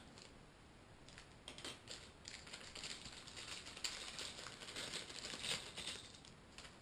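Faint, irregular light clicks and rustling from small parts and a plastic bag being handled.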